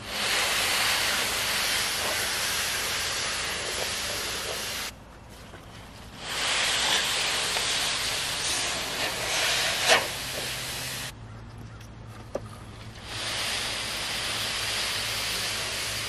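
Stack of corrugated tin roofing sheets dragged over dry leaf litter, a steady scraping, rustling hiss in three long pulls with short quieter pauses between them. A single sharp knock comes about ten seconds in.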